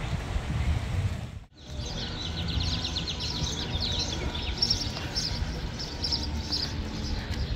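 Wind rumbling on the microphone; after a sudden break about a second and a half in, small birds chirp rapidly and repeatedly over the wind.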